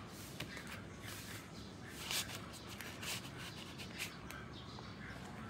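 Worn cardboard record sleeve handled and turned over in the hand: papery rubbing and a few short scrapes, the loudest about two seconds in.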